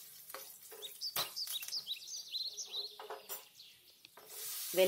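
A bird chirping in a quick run of short high tweets, over a few sharp clicks of a spoon against an aluminium kadai. Near the end a hiss starts as raw tomato pieces go into the hot oil.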